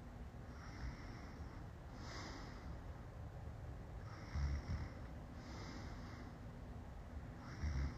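A woman passed out drunk, snoring: slow, noisy breaths roughly every one and a half to two seconds, with a loud low snort about halfway through and another at the end.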